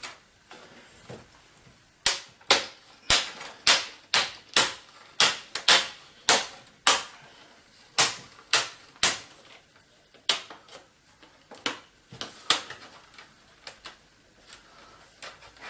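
Plastic snap clips of a Dell Inspiron 17 3721's screen bezel popping loose as the bezel is prised off by hand: a string of sharp clicks starting about two seconds in, several a second at first, thinning out in the second half.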